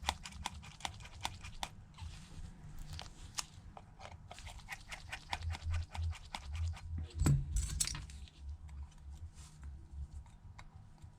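Small clicks and taps of a precision screwdriver and tools working on a phone on a bench, with one louder knock about seven seconds in.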